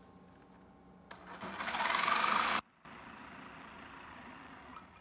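Electric jigsaw cutting wood. The motor spins up with a rising whine about a second in and runs loud, breaks off abruptly, then runs on more quietly with a steady high whine that falls away near the end.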